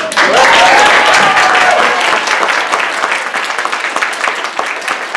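Audience applauding, starting suddenly and loudest in the first two seconds, with one long drawn-out cheer from a voice over the clapping at the start.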